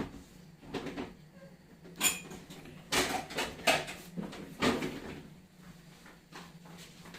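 Kitchen clatter: a handful of sharp knocks and clinks of utensils and dishes being handled, bunched between about two and five seconds in, over a steady low hum.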